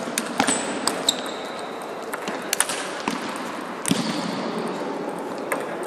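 Table tennis ball clicking as it bounces on the wooden floor of a sports hall at the end of a point, a few sharp clicks scattered over the first seconds, with a brief shoe squeak about half a second in. A steady background noise of the hall runs underneath.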